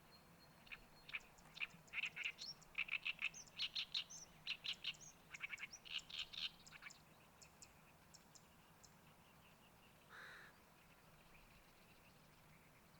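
A songbird singing a fast, chattering run of short, high notes for about six seconds, tailing off into a few scattered ticks. A short, lower call comes about ten seconds in.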